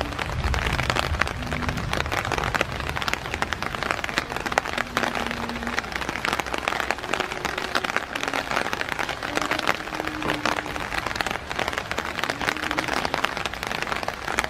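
Rain falling steadily, a dense crackling patter of drops.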